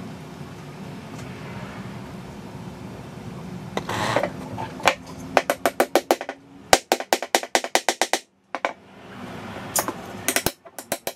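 Rapid light hammer taps, about five a second, on a wedge in the top of an old hammer's wooden handle, driving it in to tighten the head. The taps begin about five seconds in, stop briefly, and start again near the end.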